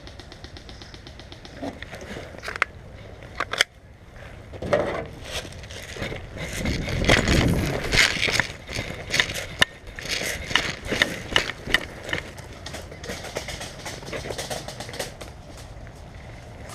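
Crackling, scuffing noise with many short, sharp clicks scattered through it. The noise is louder and rougher from about five to eight seconds in.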